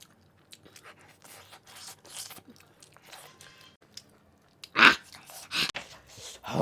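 Close-miked eating of spicy mutton leg pieces: wet chewing and smacking with many small crunchy clicks. Near the end come two louder breathy mouth sounds.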